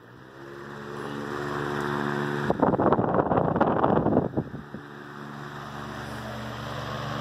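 1938 Emerson electric fan running with a steady hum from its motor and deep-pitch aluminium blades, growing louder over the first couple of seconds. About halfway through, its air stream rushes over the microphone for nearly two seconds, then the plain hum returns.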